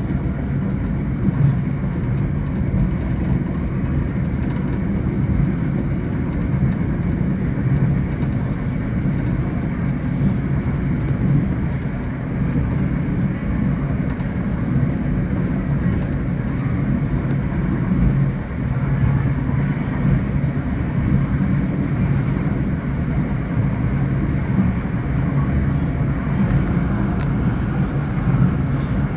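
Steady low rumble and running noise of an NJ Transit commuter train moving along the rails, heard from inside a passenger car.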